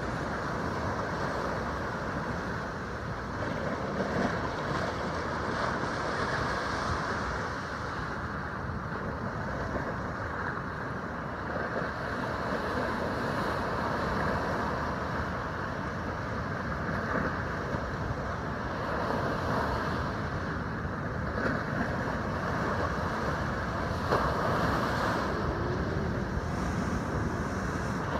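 Surf breaking over rock ledges and washing up onto the sand in a steady rush, with a louder surge near the end. Wind buffets the microphone.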